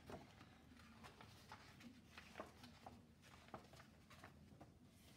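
Near silence with faint rustles and small taps of a picture book's pages being opened and turned.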